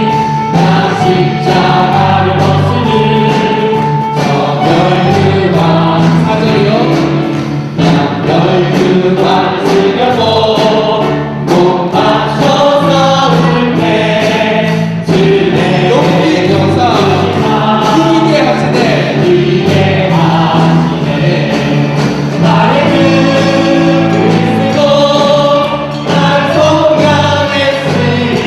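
Church choir singing a sacred song.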